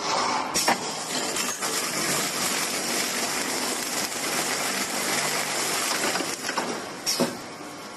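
PE pipe hole-punching machine at work: a steady hissing noise for about seven seconds, with a few sharp clicks. It falls away near the end.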